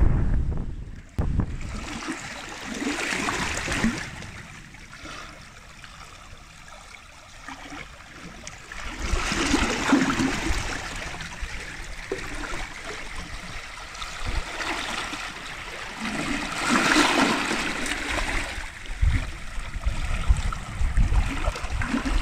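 Seawater washing in and out over shore rocks in small waves, swelling and fading every several seconds with splashing and gurgling. For about the first second, heavier surf breaks on the boulders.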